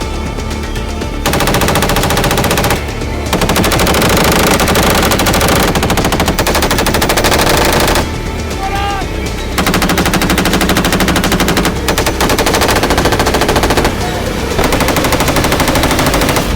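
Automatic weapon fire in several long, rapid bursts separated by short pauses, over a music track.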